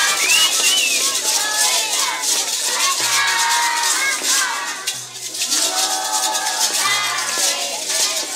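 Many children shaking small plastic maracas over a music track with a steady bass pulse, with children's voices calling out over the music.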